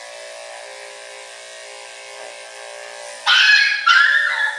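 Electric dog grooming clippers buzz steadily. About three seconds in, the schnauzer puppy gives two loud, high-pitched yelping cries in quick succession. The groomer says the blade is not touching his skin, so the cries are protest rather than pain.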